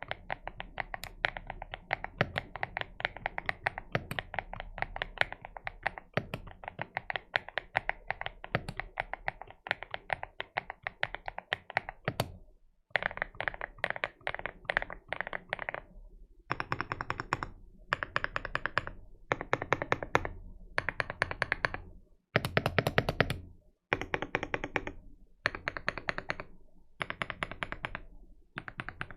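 AKKO MU01 mechanical keyboard with Keygeek Oat switches being typed on. The keystrokes come fast and unbroken for about twelve seconds, then in short bursts of about a second each with brief pauses between them.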